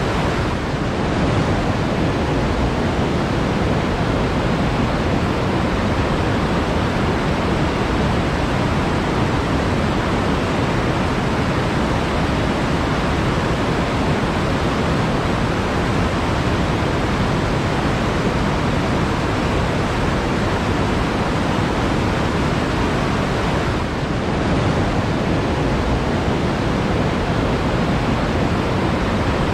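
Flowing water rushing steadily, a dense even wash of sound with no distinct splashes, dipping slightly in level twice.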